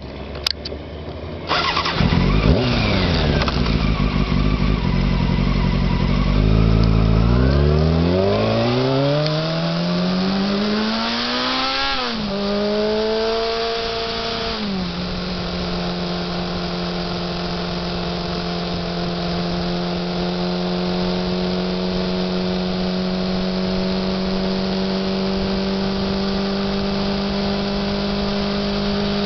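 Honda CBR600F4 sport bike's inline-four engine accelerating hard, its pitch climbing steeply through the revs, dropping at gear changes about twelve and fifteen seconds in, then holding a steady note at cruising speed.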